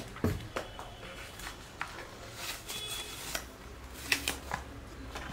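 Handling noise from unpacking an accessory box: scattered light clicks, taps and rustles of packaging.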